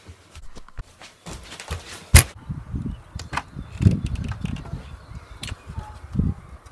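A sharp click about two seconds in, among lighter knocks and clicks and low rumbling handling noise from a handheld phone camera moving about outdoors.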